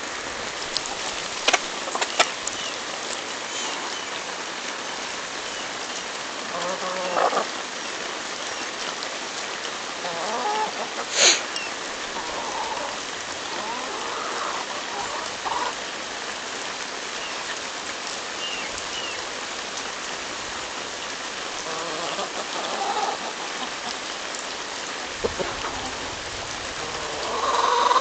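Chickens, a Rhode Island Red rooster and hens, pecking at a hand-held ear of corn, with scattered short clucks and a few sharp clicks, the loudest about eleven seconds in, over a steady hiss.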